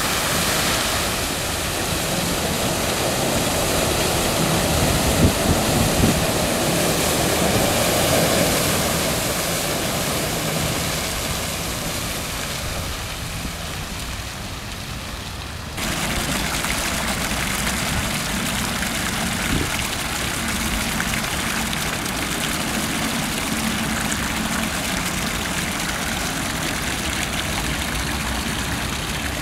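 Water of a park fountain splashing and pouring steadily, with a sudden change in the sound about halfway through.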